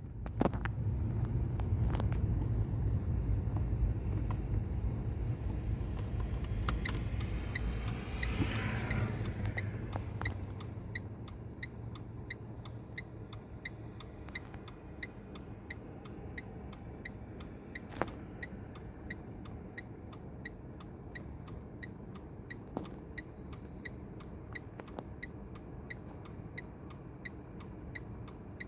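Motor vehicle engine running with a low rumble that is loudest for the first ten seconds or so and then dies down. From about seven seconds in, a steady light ticking repeats about one and a half times a second, with a few separate clicks along the way.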